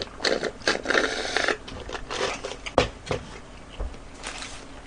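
A sip through a plastic straw, then paper burger wrappers rustling and crinkling as they are handled on the table, with a few light knocks.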